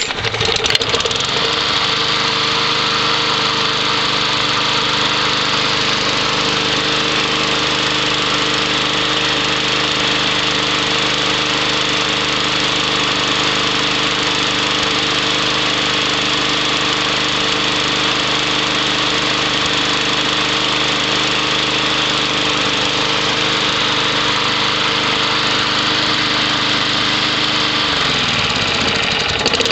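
Poulan push lawn mower's small engine catching and running up to speed, then running steadily. Near the end it slows briefly and picks back up.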